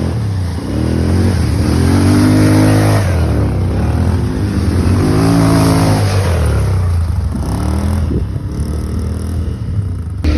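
ATV engine accelerating and easing off, its pitch rising and falling several times as the throttle is opened and closed.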